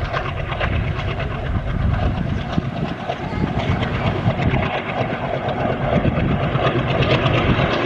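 ALCo WDG3A diesel locomotive, with its 16-cylinder ALCO 251 engine, running steadily as it hauls a passenger train, over a fast clatter of clicks. It grows gradually louder as the train comes closer.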